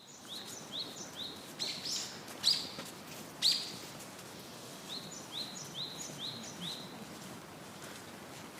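A bird chirping: runs of short, rising chirps at about two to three a second, broken about two and three and a half seconds in by a few louder, sharper calls that sweep downward, over a faint background hiss.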